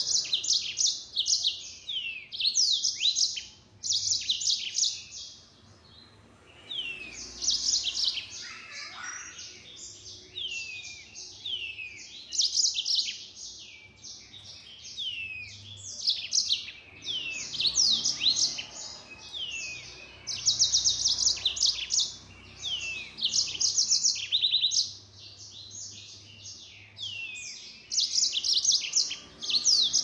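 Yellow-fronted canary singing loudly in rapid-fire, high-pitched phrases of fast trills and down-slurred notes, each phrase one to two seconds long with short pauses between.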